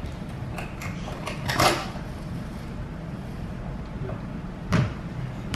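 Small knocks and rustles of objects being handled on a tabletop, with a sharper knock near the end, over a steady low hum.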